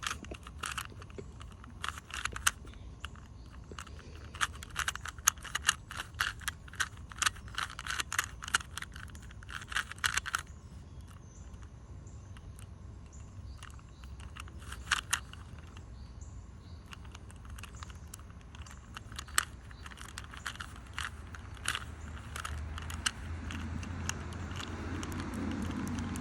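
Plastic Rubik's Cube layers being twisted by hand: quick runs of clicks and clacks, busiest in the first ten seconds, then sparser. A low hum grows near the end.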